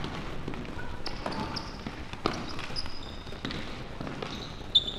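Indoor team-game sounds in a sports hall: short sneaker squeaks on the hall floor, the loudest near the end, and a few sharp knocks of a ball or sticks over the general din of play.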